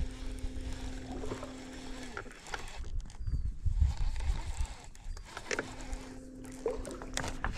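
Electric trolling motor humming at a steady pitch in two bursts of about two seconds each, one at the start and one near the end, with a few light clicks from the rod and reel in between.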